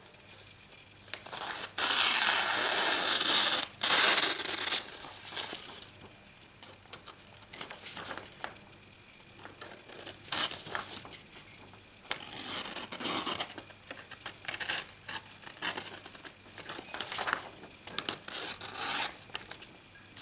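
Sheet of paper rustling and ripping as a dull Buck knife blade is pushed through it, snagging and tearing the paper in ragged bursts rather than slicing cleanly. The loudest tearing comes in the first few seconds, followed by shorter scrapes and rips. It is the sound of a blunt edge that doesn't cut paper at all.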